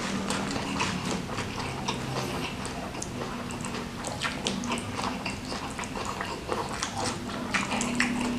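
Close-miked chewing and biting of food, with many quick wet clicks and smacks of the mouth.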